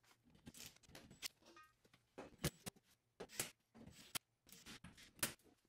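Faint, scattered clicks and knocks of the metal cover of a Square D QO electrical panel being handled and fitted back onto the panel.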